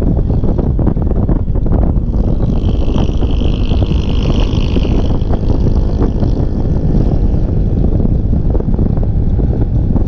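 Wind buffeting a helmet- or bike-mounted action camera's microphone on a motor scooter at road speed, with the scooter's engine and tyre noise underneath. A higher hiss rises about two seconds in and fades out by about five seconds.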